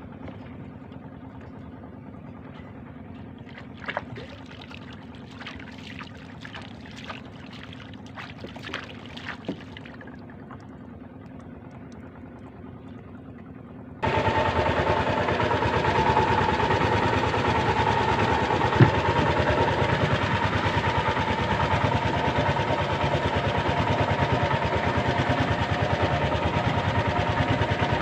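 Water lapping and small splashes and knocks around a small boat. About halfway through, a small boat engine starts up abruptly and runs steadily and much louder, with a steady hum.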